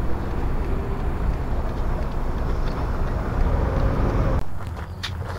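Road traffic and a low wind rumble, recorded by the Tomate MT-1190 action camera's own microphone beside a city avenue. A little over four seconds in, the sound cuts to a quieter scene with a few light clicks and crunches.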